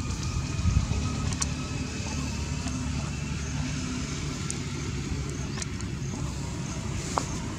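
A motor vehicle's engine hums low and steady in the background, with a few faint clicks.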